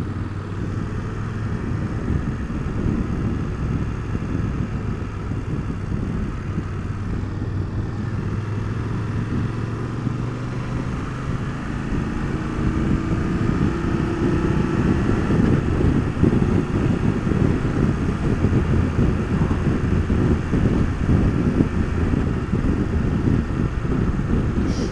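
BMW F850GS Adventure's parallel-twin engine running as the bike pulls away and accelerates, with a rising engine note about halfway through and louder engine and wind noise as it gathers speed.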